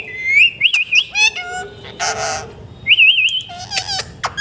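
Indian ringneck parrot whistling warbling, wavering notes and quick rising chirps, with one harsh squawk about two seconds in.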